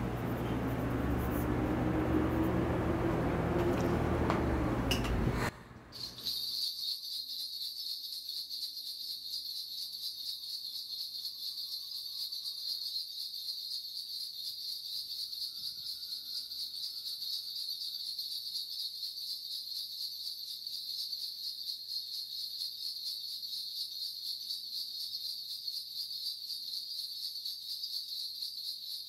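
A loud rushing noise that cuts off abruptly about five seconds in, followed by a shaman's bundle of ritual bells shaken in a fast, steady jingle.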